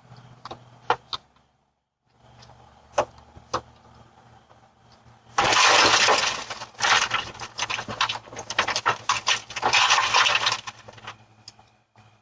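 A car window being smashed: a few sharp knocks, then loud glass breaking and crunching for about five seconds, made up of many rapid impacts.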